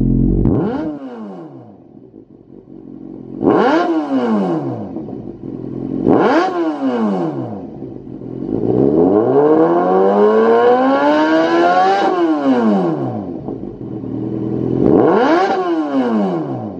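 Kawasaki Z800's inline-four engine through a Lextek YP4 aftermarket silencer, revved on the spot from idle. Short throttle blips about a second in, near four seconds and near six and a half seconds, each rising sharply and falling back; then a longer rev that climbs for about three seconds before dropping back to idle, and one more blip near the end.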